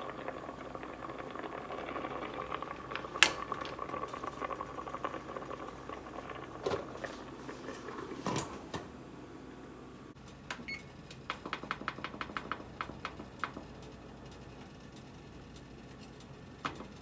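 Kitchen handling sounds over a faint steady hum: a few sharp knocks and clinks, the loudest about three seconds in, then a quick run of light clicks, about seven a second, lasting a couple of seconds.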